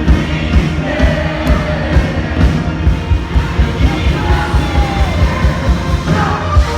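Music with a steady beat of about two beats a second and singing over it.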